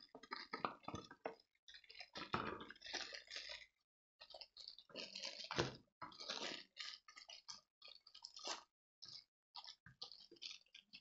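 Plastic packaging rustling and crinkling in irregular bursts as it is handled, with a short pause a little before halfway.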